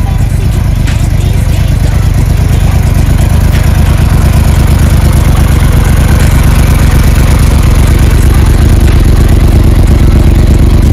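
2017 Yamaha YZF-R1's crossplane inline-four idling steadily through an Akrapovic exhaust, a dense low pulsing beat that grows slightly louder toward the end.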